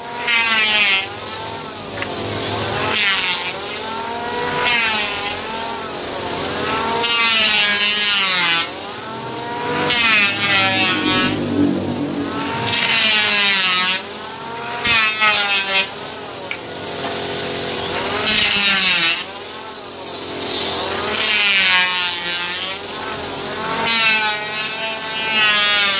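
Electric hand planer running and making repeated passes over wood, about ten in all, every two to three seconds; the motor's pitch dips and recovers with each pass as the freshly sharpened blades bite.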